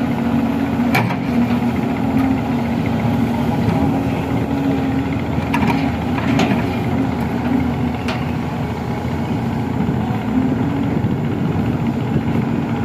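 Hydraulic excavator's diesel engine running steadily, with a few short knocks about a second in and again around six and eight seconds in.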